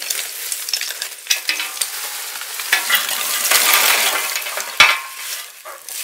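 Lumps of charcoal poured from a plastic bag clatter and tumble onto a burning wood fire in a metal brazier, over the crackle of the fire and the rustle of the bag. The pouring is busiest around the middle, with one sharp knock about five seconds in.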